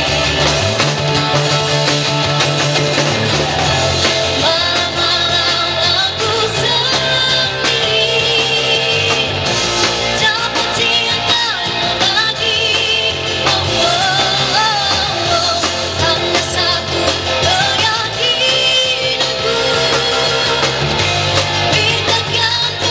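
A girl singing lead into a microphone over a live rock band: electric guitar, bass guitar, acoustic guitar and drum kit, played through amplifiers.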